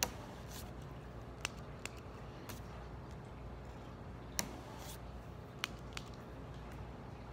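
Several light clicks and taps from hands handling a marker, paper and the phone close to the microphone, scattered irregularly over a low steady hum.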